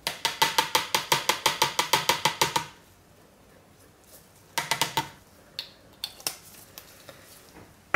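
Small glass fragrance-oil bottle shaken upside down to empty it, giving a quick, even run of clicks, about eight a second, for some two and a half seconds. Another short run comes near the middle, then a few separate clicks as the bottle is capped.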